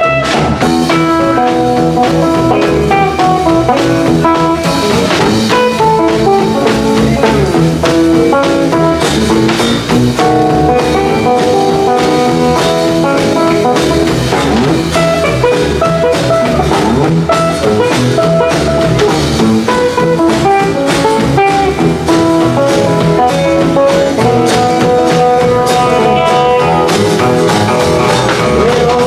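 Music with guitar and a drum kit playing a steady beat.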